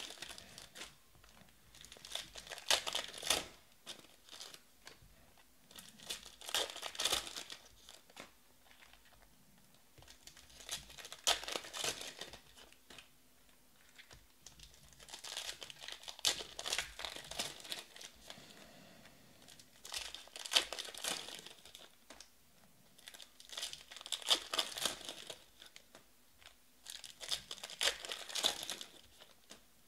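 Foil trading-card pack wrappers crinkling and tearing as Panini Prizm baseball packs are ripped open one after another, in short bursts about every four seconds.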